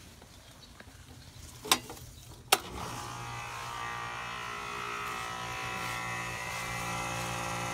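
Two sharp clacks as the disconnect is switched back on, then the condensing unit starts with a steady electrical hum that slowly grows as the condenser fan motor struggles up to speed, a sign of a weak fan motor even on a new capacitor.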